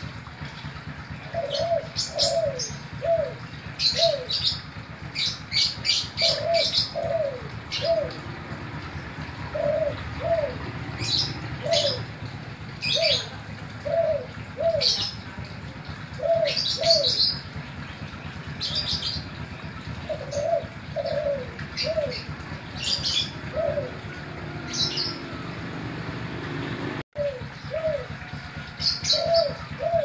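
Spotted dove (tekukur, Kelantan strain kept for its song) cooing again and again in short phrases of falling notes, with small birds chirping high in the background. A brief dropout cuts the sound near the end.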